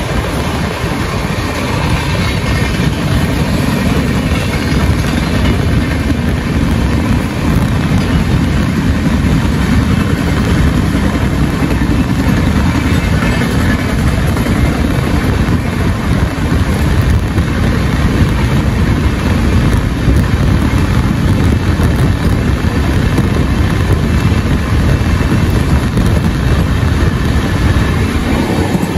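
Steady low rumble of an Indian Railways passenger train running at speed, heard from inside a coach, with rushing air noise and no pauses.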